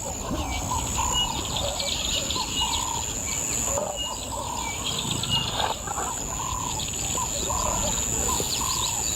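Wild birds calling repeatedly, short high whistled notes and lower curving calls, over a steady high-pitched hum.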